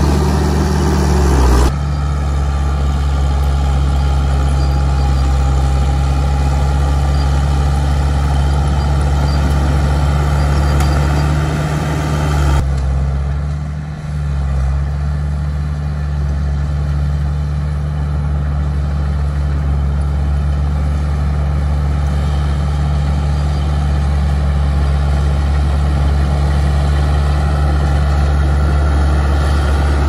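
Heavy diesel engine of construction machinery running steadily with a low, even hum. The sound changes abruptly about two seconds in and again about twelve seconds in, with a brief dip in the engine note just after.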